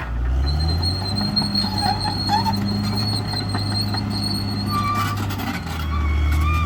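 Diesel engine of a CAT D6R XL crawler bulldozer running steadily, rising in pitch just after the start as it picks up load, with a thin high whine over it.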